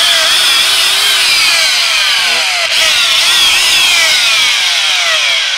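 HCC corded electric drill running at full speed on the trigger, starting abruptly and rather loud, with a whine whose pitch keeps sliding downward. The drill has a fault that the seller suspects is worn-out carbon brushes.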